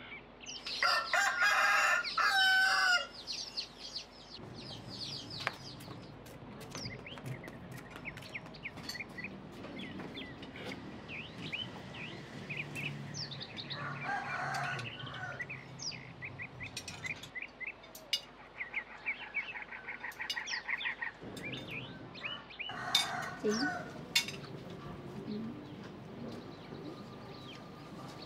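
A rooster crows once, loud and long, in the first few seconds. Small birds then chirp on and off, and two shorter chicken calls come later, about halfway through and again near the end.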